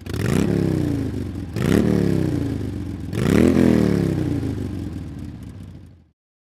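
An engine revved three times in quick succession, each rev climbing sharply and then winding down slowly, cut off abruptly at the end.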